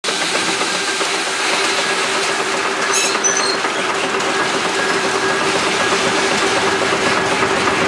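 Steam traction engine running steadily, with a constant hum under the noise and a brief high chirp about three seconds in.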